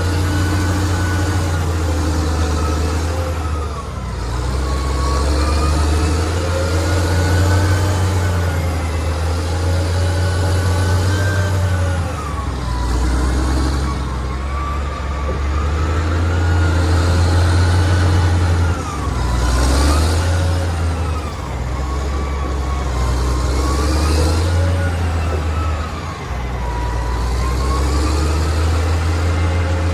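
Excavator's diesel engine running under load, with a hydraulic whine that rises and falls in pitch over several seconds as the machine works, and the engine note stepping up and down.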